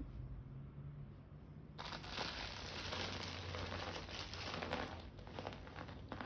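Crinkling and crumpling of packaging being handled, starting suddenly about two seconds in and going on as a dense crackle.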